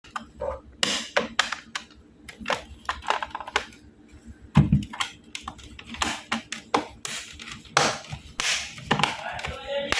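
Irregular clicks, taps and scrapes of hard plastic laptop parts being handled.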